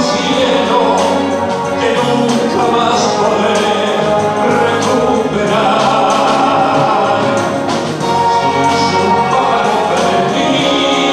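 Live band orchestra playing a full-ensemble passage of held chords, loud and steady, with a few cymbal-like splashes.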